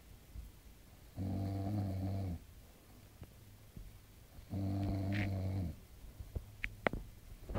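A sleeping pet snoring: two pitched snores, each just over a second long and about three seconds apart, with quiet breathing between them. A few short sharp clicks come near the end.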